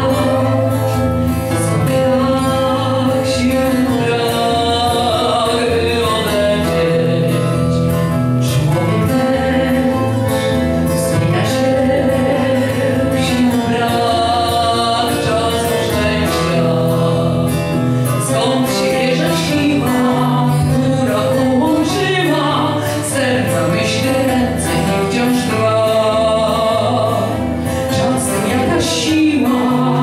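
A woman singing a Polish song into a microphone over instrumental accompaniment with a steady bass line.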